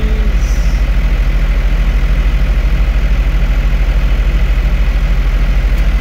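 New Holland 4835 tractor's diesel engine running steadily with an even, rapid pulse, heard from inside the cab.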